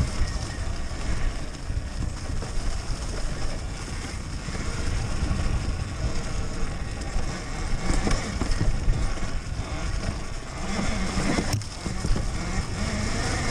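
Riding noise of a Talaria Sting MX4 electric dirt bike on rough, muddy single track: a steady noisy rumble of wind and of the bike working over the dirt, with one sharp knock about eleven and a half seconds in. The electric motor itself is near silent.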